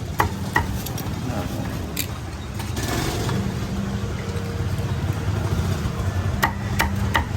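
A motor vehicle engine running steadily close by, with a few sharp knocks of a cleaver chopping roast pork on the block, several of them near the end.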